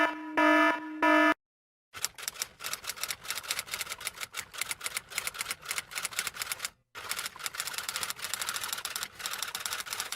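Fast typing, a dense run of key clicks that pauses briefly about halfway through. Just before it, a few short pitched beeps end after about a second.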